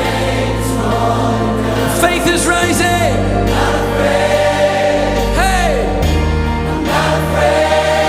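Worship song with a choir singing held, wordless chords over a band and a bass line that changes note every couple of seconds; about five and a half seconds in, a single voice sweeps up and down in pitch.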